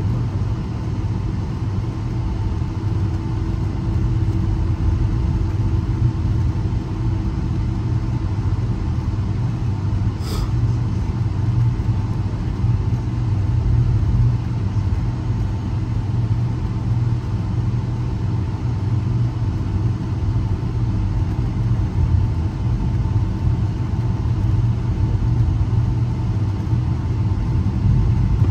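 Cabin noise of a Boeing 757 on the ground before departure, its engines at idle: a steady low rumble with a steady hum on top. A single brief click about ten seconds in.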